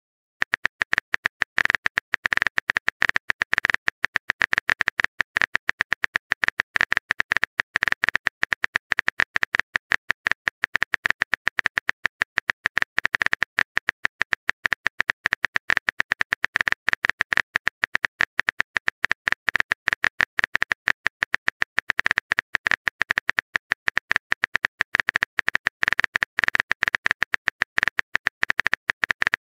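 Rapid keyboard-typing clicks from a texting app, many a second, as a message is typed out letter by letter. They start about half a second in, after a moment of silence.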